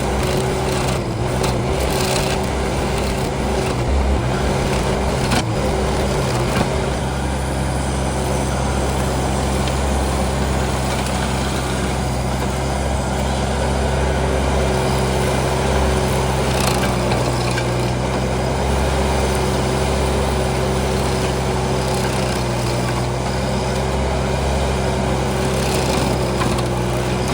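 Case TL100 mini skid steer's engine running steadily under load while its Toro hydraulic stump grinder chews into a spruce stump. Scattered sharper knocks break through the grinding.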